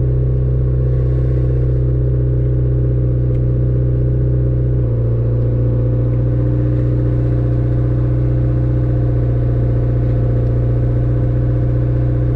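Turbocharged Honda four-cylinder with a straight-piped exhaust, running at a steady speed with a loud, even drone; the note shifts slightly about five seconds in.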